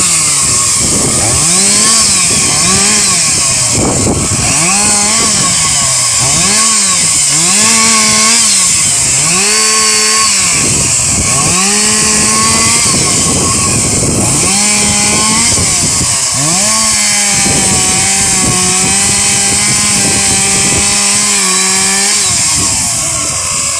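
Chainsaw engine revving up and falling back about once a second, then held at high revs for several seconds before dropping off near the end.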